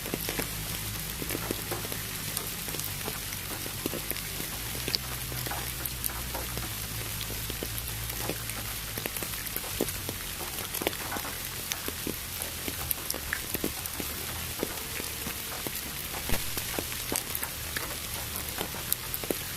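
Steady rain with many individual drops ticking and pattering, over an even hiss of pink noise. A low steady drone sits underneath.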